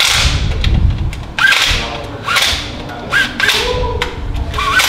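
Cordless impact wrench firing in about five short bursts, several starting with a brief rising whine, as it drives bolts under the car.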